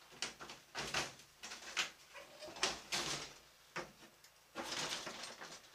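Hard plastic SportRack rooftop cargo box being unlatched and its lid lifted open: a run of sharp clicks and knocks, then a longer scuffing, rattling stretch near the end.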